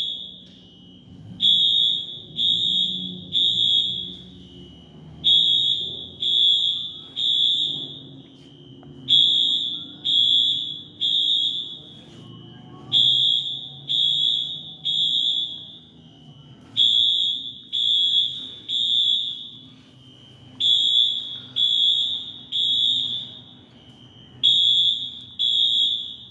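Building fire alarm horns sounding the temporal-three evacuation signal: three loud, high-pitched beeps, a pause, then three more, repeating about every four seconds.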